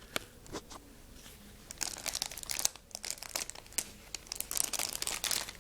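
Packaging crinkling and rustling with scattered clicks as a small camcorder is worked out of its pouch one-handed, sparse at first and busier from about two seconds in.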